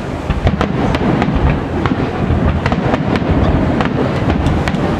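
Aerial firework shells launching and bursting in rapid succession: a continuous low rumble of booms with many sharp cracks, several a second, layered over it.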